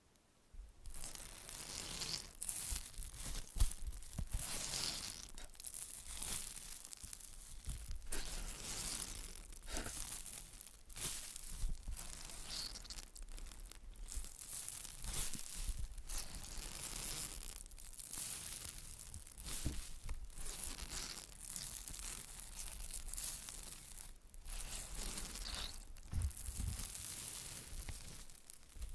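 Close-miked ASMR trigger sounds: material being rustled and scratched in quick, irregular strokes, starting about a second in.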